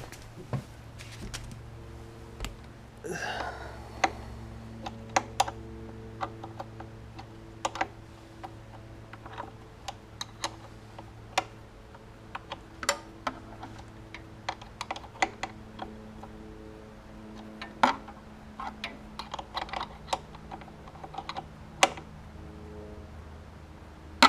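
Irregular sharp metallic clicks and clinks of a 10 mm spanner and nut being worked onto a grounding stud, with a brief scraping rustle about three seconds in, over a faint steady hum.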